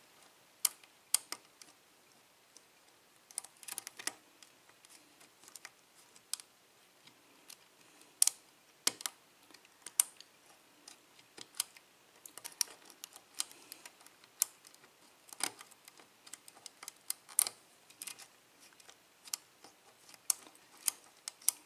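Lock pick clicking and scraping against the pins inside a CES 5-pin euro cylinder during single-pin picking: irregular, sharp little clicks, some louder than others.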